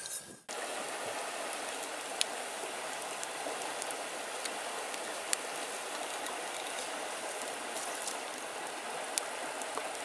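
Steady rushing hiss of flowing water, with a few sharp crackles from a small ember campfire.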